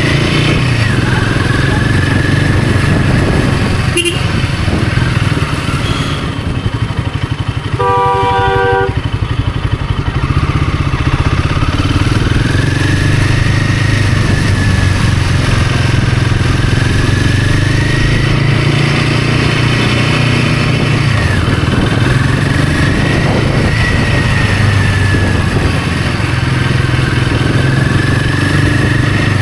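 Royal Enfield Himalayan 450's 452 cc single-cylinder engine running steadily while riding. A vehicle horn sounds once for about a second, some eight seconds in.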